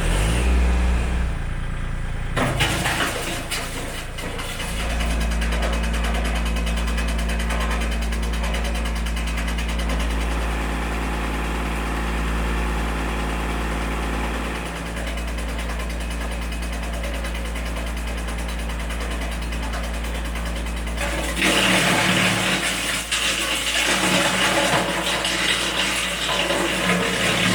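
Kubota L2501 compact tractor's diesel engine, running the BX42S PTO wood chipper, starts up suddenly and then runs steadily. About 21 seconds in the sound turns louder and harsher.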